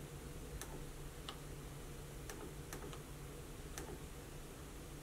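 About five short, separate clicks at uneven spacing as a finger taps the touchscreen control panel of an HP color LaserJet printer, over a low steady hum.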